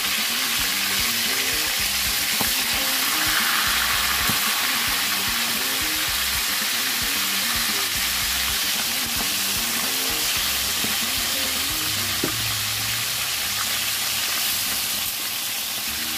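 Chicken pieces frying in hot oil in a wok: a steady sizzling hiss.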